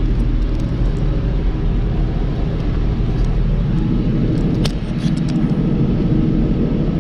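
John Deere 5075E tractor's diesel engine running steadily while it goes through a diesel particulate filter regeneration, with a short sharp click about two-thirds of the way through.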